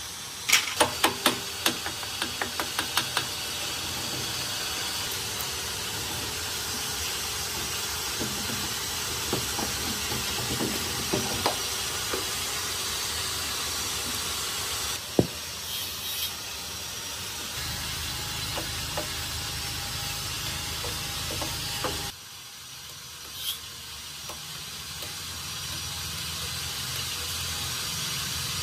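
Hand tools working on an old rusty engine: a quick run of sharp metallic clicks fading away near the start, then scattered light knocks and scrapes over a steady hiss.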